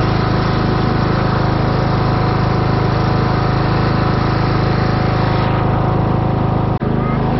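Cub Cadet riding lawn mower's engine running steadily while mowing, with an abrupt cut near the end.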